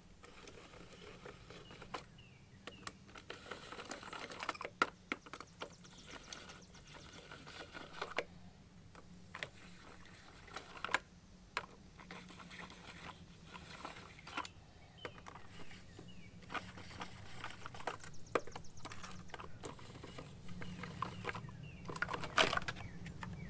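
Scattered light clicks and small plastic knocks as plastic lug-nut caps are unscrewed and handled.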